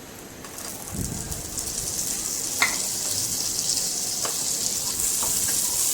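Cashews, pistachios and raisins frying in hot ghee in a pan: a sizzle that starts about half a second in and builds, with a low thump about a second in and a few light clicks of stirring.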